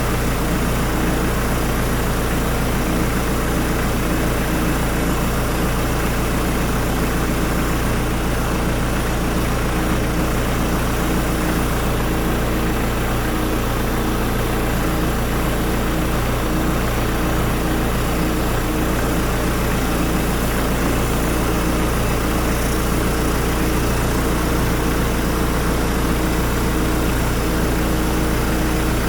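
Hyundai D4BH 2.5-litre four-cylinder turbodiesel idling steadily, with no change in speed.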